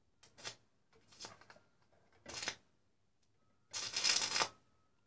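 Electric arcs crackling as the bare copper wire end of a switch-mode power supply's output lead is touched to a metal plate. There are several short sputtering bursts, and the longest and loudest comes about four seconds in.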